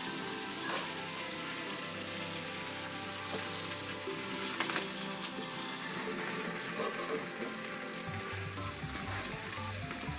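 A steady hiss with faint music underneath.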